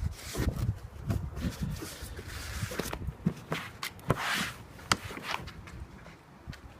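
Cloth wiping and hands handling parts under the hood: scattered light clicks and rustling, with a brief hiss about four seconds in.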